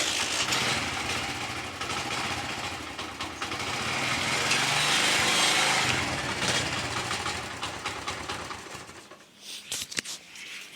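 Ravi Humsafar 70 cc single-cylinder four-stroke motorcycle engine starting, running, revving up slowly about four seconds in and falling back, then shutting off about nine seconds in.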